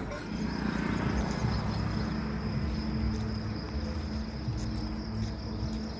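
A steady, high-pitched insect trill, over a low steady hum and rumble.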